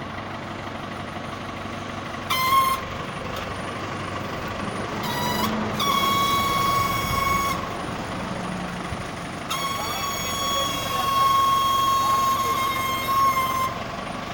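A high, steady horn tone sounds four times: two short blasts about two and five seconds in, then two long ones of about two and four seconds. Underneath, a tractor engine idles.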